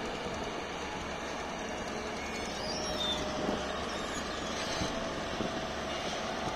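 Heavy construction machinery running with a steady rumble, with a few faint clicks near the middle and no breaker hammering.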